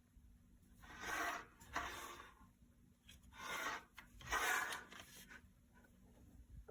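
Four short rasping rubs at irregular intervals, like something being handled or rubbed against a surface.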